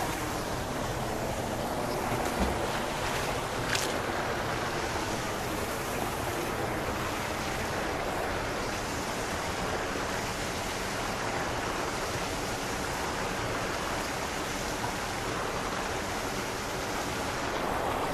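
Steady rushing of water pouring into a canal over a stone spillway.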